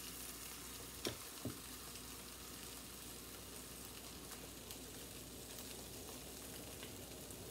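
Eggs frying in a nonstick pan on a gas stove, a faint steady sizzle. Two small clicks come about a second in, half a second apart.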